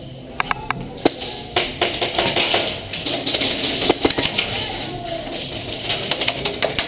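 Airsoft guns firing in sharp, irregular snaps, single shots and short quick strings, with faint voices in the background.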